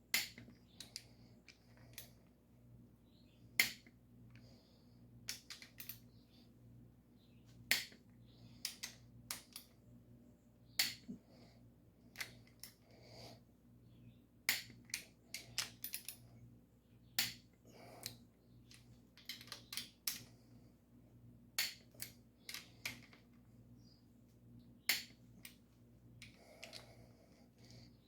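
Sharp metallic clicks at irregular intervals, some in quick clusters, from a click-type torque wrench and socket as small-block Chevy cylinder head bolts are torqued down in steps up to 70. A faint steady low hum lies underneath.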